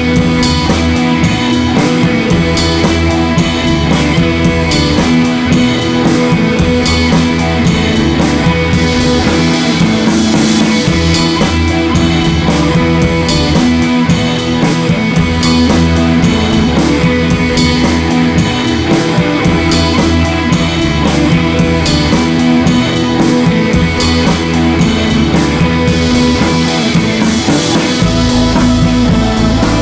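Rock-style background music with guitar and drum kit playing a steady beat.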